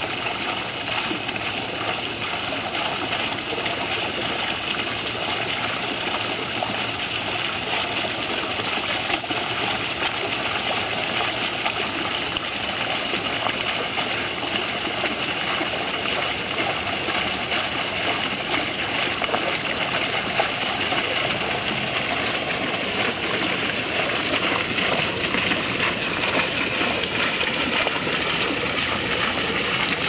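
Three upright foaming water jets of a small pool fountain shooting up and splashing back into the basin: a steady rushing splash of falling water.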